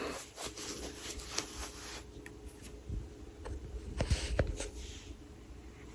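Faint rustling and scattered light clicks over a steady faint hum, with two sharper taps in quick succession a little after four seconds in.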